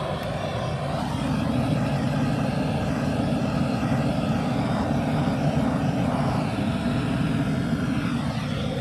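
Excavator's diesel engine running steadily, a low even drone that does not change.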